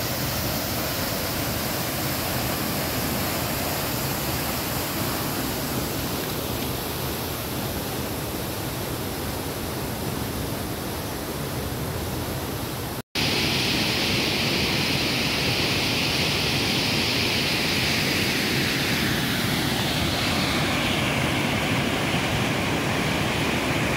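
Mountain waterfall pouring down a rocky gorge: a steady rush of falling water. It cuts out for an instant about halfway through and comes back louder and hissier.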